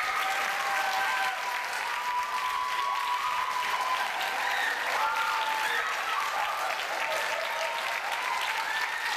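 Audience clapping steadily, with a few voices carrying over the applause.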